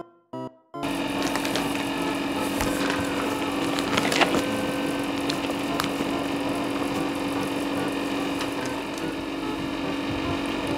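Wheat flour being poured into a bowl, with crackling, rustling handling noises and clicks over a steady hum.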